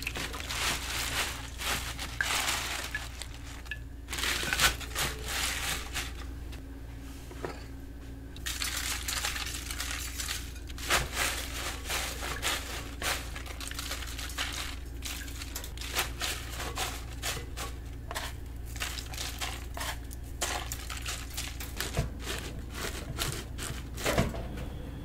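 Hands washing radish greens in a basin of water in a steel sink: water splashing and dripping as the leaves are swished, lifted and dunked, with wet leaves rustling, in irregular bursts with a short lull in the middle.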